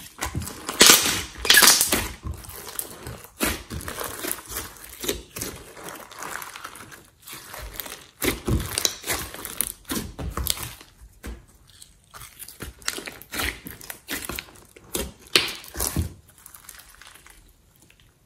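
Glossy homemade slime being stretched, folded and squeezed by hand, giving irregular clicks and squishes with short pauses between handfuls.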